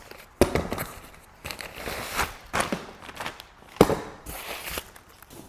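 Packaging of new parts being opened: rustling and tearing of boxes and wrapping, with two sharp knocks, one about half a second in and one near four seconds.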